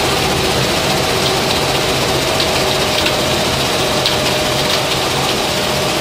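Sand-making plant machinery running steadily: a vibrating screen and crusher giving a continuous loud mechanical din with a low hum, and scattered light ticks on top.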